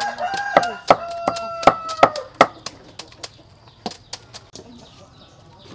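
A kitchen knife chopping on a wooden cutting board: irregular sharp knocks, about two or three a second at first, growing sparser after about three seconds. A chicken calls with a long held note over the first two seconds.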